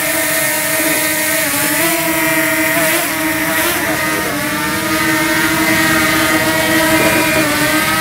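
DJI Mini 2 quadcopter's propellers whining at close range, a steady multi-tone buzz whose pitch dips and rises a little every second or two as the drone is manoeuvred.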